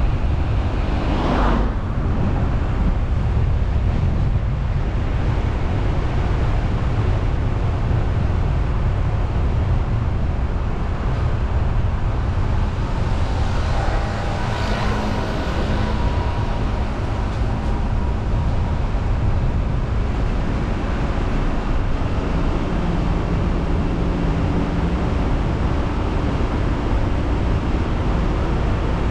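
Car driving, with a steady low rumble of road and engine noise picked up by the vehicle-mounted camera. There is a brief whoosh about a second in and a longer swell of hiss around the middle.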